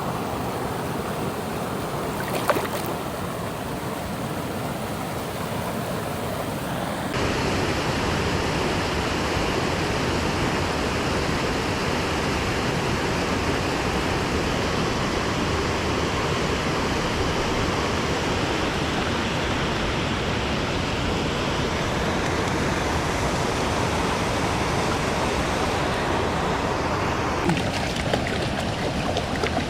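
Steady rush of flowing river water, stepping up louder about seven seconds in, with a single sharp tick about two and a half seconds in.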